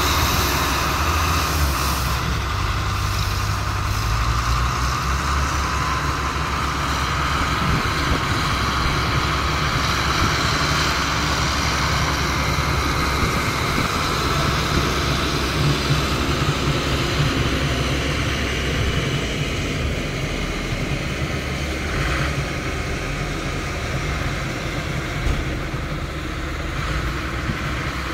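Diesel engines of front wheel loaders running steadily while the loaders clear snow, a continuous low rumble.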